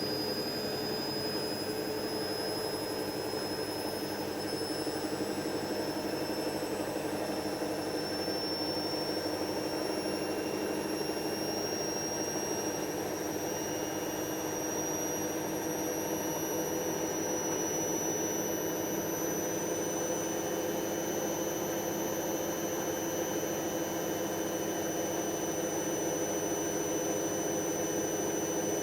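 Hoover DYN7144XD1 washing machine spinning, its motor and drum giving a steady whine that climbs slowly in pitch as the spin speeds up.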